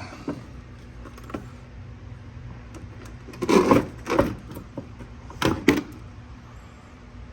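Hard plastic clattering and scraping of a 2006 Toyota Tundra's air intake box and air filter being handled and lifted out. A few light clicks come first, then two bursts of handling noise about two seconds apart.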